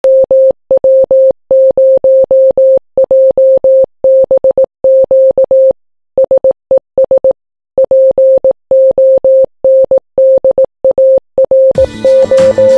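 Morse code: a single steady mid-pitched beep keyed on and off in short and long elements, with short pauses between groups. Music comes in under it near the end.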